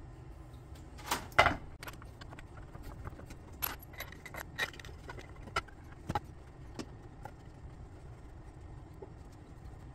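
Scattered sharp metallic clinks and clicks of steel bolts being handled and threaded finger-tight into a transmission pump body, the loudest pair about a second in.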